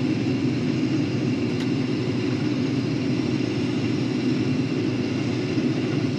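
Case IH 2366 combine harvesting soybeans, its engine and threshing machinery running as a steady, even drone heard from inside the cab.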